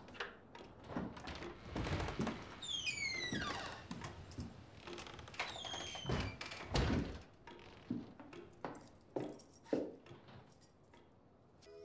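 A door creaking on its hinges in long, falling squeaks, among scattered knocks and thumps that sound like footsteps and handling in a small room.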